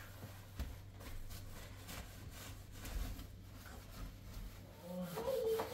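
Hand brush scrubbing the sheet-metal side of a refrigerator: a run of short, irregular rubbing strokes. A short pitched sound comes in near the end.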